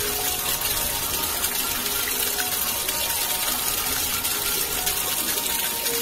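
A jet of water gushing and splashing into churning water: a steady rushing that does not let up.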